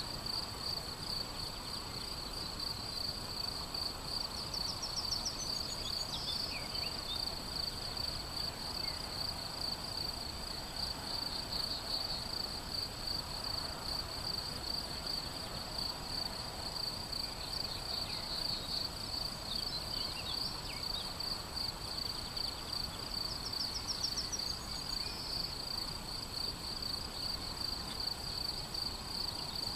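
Crickets chirping steadily, a continuous fast high-pitched trill, with a songbird singing a short phrase now and then, twice with a rising trill about five seconds in and again near the end of the second third, over a low outdoor rumble.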